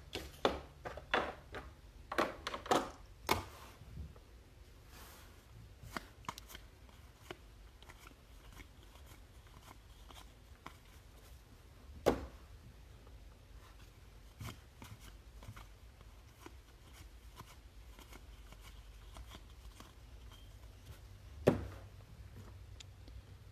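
Trading cards being handled on a table: a quick run of rustles and clicks in the first few seconds, then scattered soft clicks with two sharp knocks, one about halfway through and one near the end.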